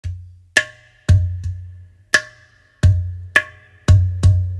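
Background music built on percussion: deep drum hits and sharp clicky strikes, roughly two beats a second.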